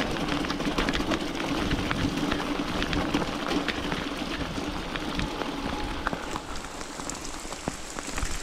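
Heavy rain falling, with many sharp drops ticking close to the microphone, over the noise of a mountain bike rolling down a wet, muddy track.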